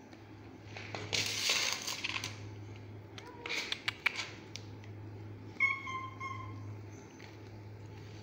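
Cats and a puppy eating dry kibble from a steel bowl: sharp clicks of kibble and teeth against the metal bowl, a burst of rustling noise about a second in, and one short, even-pitched cat mew a little past the middle. A steady low hum runs underneath.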